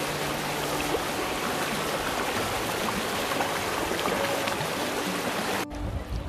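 Shallow river rapids rushing and splashing over stones in a steady, noisy wash. The sound cuts off abruptly near the end and gives way to a low rumble.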